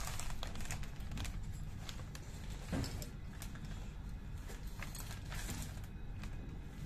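Scattered light metallic clicks and knocks from a pump's mechanical seal cartridge being handled on a metal sheet, with a small hand tool working at a screw on its flange. One firmer knock comes a little under three seconds in, over a steady low hum.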